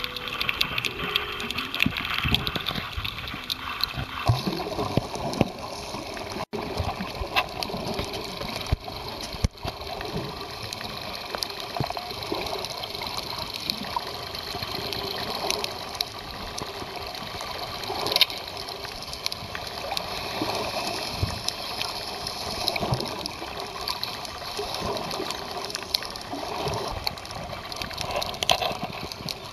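Underwater audio from a camera held beneath the sea surface: a steady, muffled rush and gurgle of moving water, with many scattered clicks and pops.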